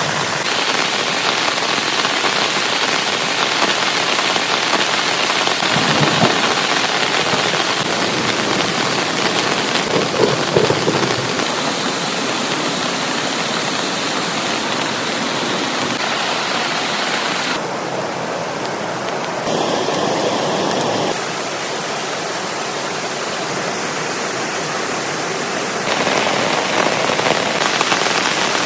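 Heavy rain falling steadily, a dense hiss whose tone shifts abruptly a few times.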